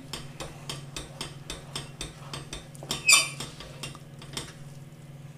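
A spoon stirs a thick fruit-and-flour cake mixture in a stainless steel saucepan, clicking and scraping against the pan several times a second, with one louder scrape about three seconds in.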